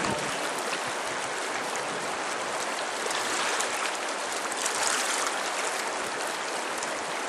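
Steady rush of a river running over a rocky bed.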